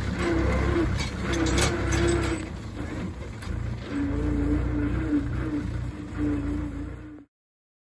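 Mahindra 575 DI tractor's diesel engine running under load as it pulls a trolley heaped with earth: a steady, pulsing low drone. It cuts off suddenly about seven seconds in.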